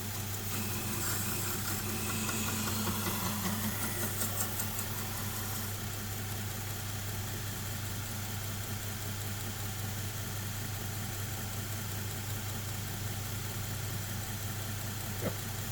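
Belt grinder motor running steadily with a cloth deburring belt, a knife edge held very lightly against the belt to knock off the burr. The rubbing texture eases off about six seconds in, leaving the motor and belt running on their own.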